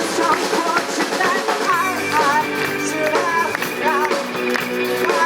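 Live rock band playing, with electric guitar and drum kit, and a wavering lead melody line on top.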